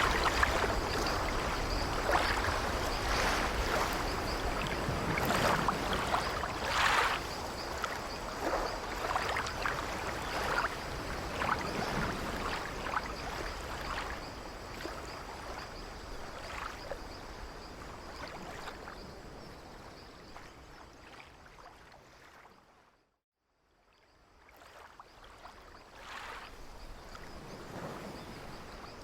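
Sea waves washing against an old wooden sailing ship, with the ship's timbers creaking now and then. The sound fades out to a moment of silence about 23 seconds in, then fades back in.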